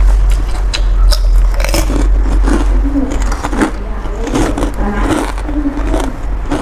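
Close-miked eating sounds of a person having noodle soup: chewing and biting, with a metal spoon clicking and scraping in the soup plate, over a steady low hum.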